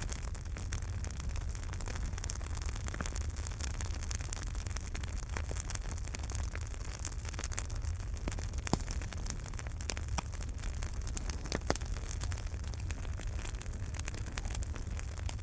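Wood fire in a fireplace crackling: a steady low rumble of burning with frequent sharp crackles and a few louder pops.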